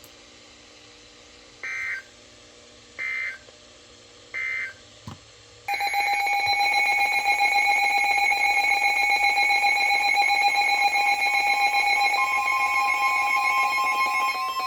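Emergency Alert System end-of-message data: three short buzzy digital bursts about a second and a half apart. About six seconds in, a loud steady electronic alert tone starts, and a second, slightly higher tone joins it about twelve seconds in.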